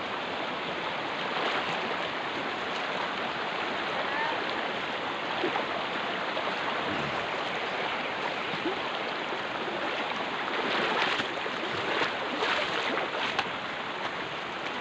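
River water rushing steadily over rocks, with a few short louder sounds near the end.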